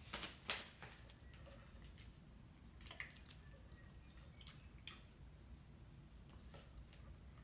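Near-silent room with a few faint clicks and taps, the sharpest about half a second in: a dog's paws and claws stepping on foam floor mats and an inflatable balance pad.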